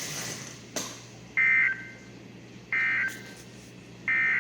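EAS end-of-message code from a weather radio broadcast: three short, identical bursts of warbling data tones, about 1.3 seconds apart, marking the end of the flash flood warning. A single click comes under a second in, before the first burst.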